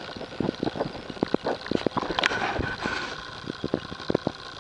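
Irregular light knocks and clatter of sheet metal and tools being handled in a van's body, with a short scrape about two seconds in.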